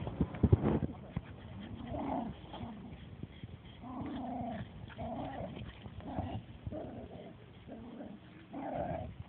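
Small dogs play-growling and giving short barks while wrestling, in brief calls about once a second. A few loud thumps come about half a second in.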